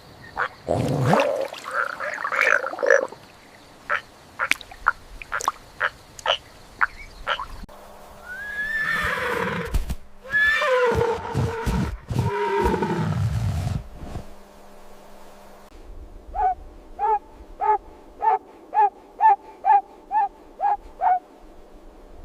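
A run of different animal calls one after another: short calls and clicks, then long calls that fall in pitch, then a quick series of about a dozen short, evenly spaced calls near the end.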